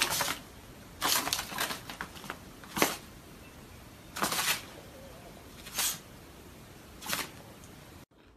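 A small dog at play on carpet makes a series of short, sharp noisy puffs, about six of them, some coming in quick clusters.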